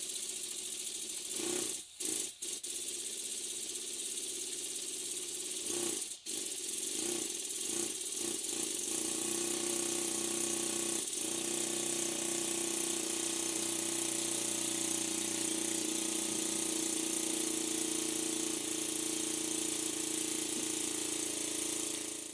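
Cheddar Models Puffin twin-cylinder model steam engine running on steam: a steady hiss of steam with a light mechanical rattle. About nine seconds in a steady hum settles in as the engine runs on evenly.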